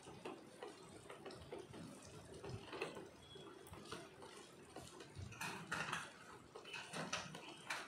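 Faint, irregular wet clicks and squelches from a thick fenugreek-leaf masala in a stainless-steel kadhai, stirred with a steel ladle and simmering on the stove.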